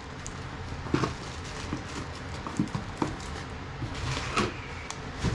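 Cardboard box and its packed contents being handled: scattered knocks and light rustling, a few separate knocks a second or so apart.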